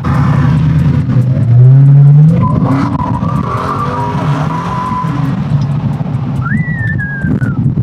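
Dodge Hellcat's supercharged 6.2-litre HEMI V8 under hard acceleration, rising sharply in pitch about two seconds in at its loudest, then running on strongly with a high whine over it. A short high squeal rises and falls near the end.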